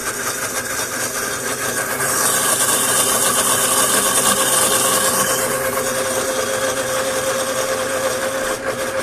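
Countertop blender motor running steadily, pureeing a thick mix of boiled potato and carrot with oil and milk into a smooth sauce, with a steady whine under the whirr. About two seconds in it grows louder and hissier for a few seconds while the lid's centre plug is lifted out, then settles back.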